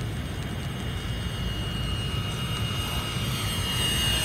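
Twin jet engines of a radio-controlled model A-10 on a slow, low gear-down approach, giving a steady high whine that grows slightly louder as the plane nears.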